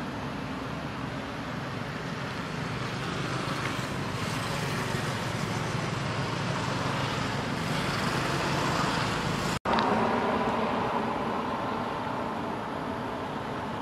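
Steady outdoor background noise with a low traffic-like rumble and no distinct events. It drops out for an instant about ten seconds in, then comes back slightly louder.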